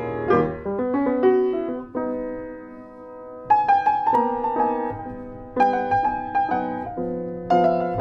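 Solo piano music: chords and a melody, with a held chord dying away about two seconds in before the playing picks up again.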